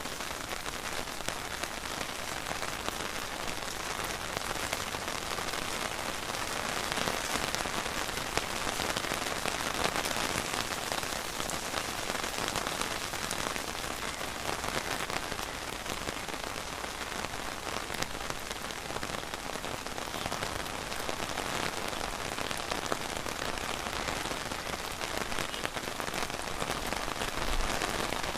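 Steady rain falling, a dense, even patter of raindrops.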